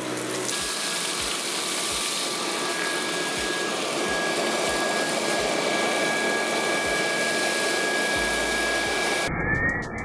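Dyson V11 Absolute Pro cordless stick vacuum running steadily with a high whine as its cleaner head picks up scattered grains from a hardwood floor. A little after nine seconds it cuts off abruptly and music with steady tones takes over.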